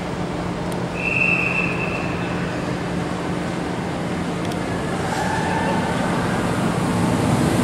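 SNCF Régiolis (B 84500 series) regional multiple unit approaching along the platform, its running noise growing steadily louder. A short, high, clear tone sounds about a second in.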